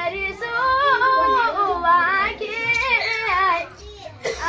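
Women singing a Holi folk song, with long held notes that waver and slide in pitch; the singing drops away briefly near the end.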